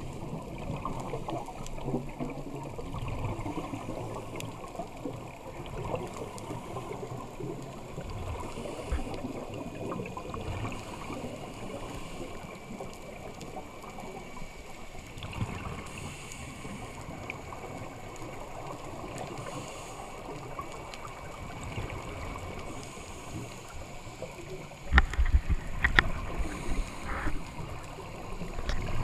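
Muffled underwater rumble and hiss heard through a camera's waterproof housing, with the bubbling of a scuba diver's exhaled breath. Near the end there are several sudden loud knocks and bursts as the camera comes against the diver's gear.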